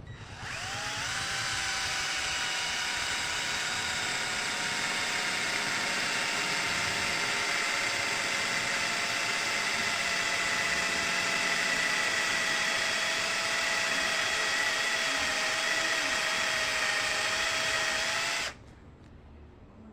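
Ken 12V cordless drill driver drilling a 6 mm bit into thick steel. Its motor whines steadily, spinning up about half a second in and sinking slightly in pitch as it works, then cuts off suddenly near the end.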